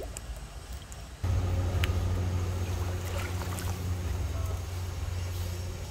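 An engine's low steady hum cuts in suddenly about a second in and holds, easing off slightly toward the end.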